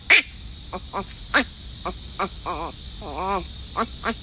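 Infant baboon calling: a string of short squeaky chirps, some sweeping up or down in pitch, with a longer wavering call about three seconds in.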